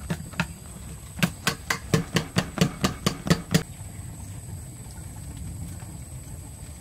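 Wire whisk clinking against a stainless steel bowl of batter: a run of sharp metallic clicks, about four a second, that stops a little past halfway, leaving a low steady background hum.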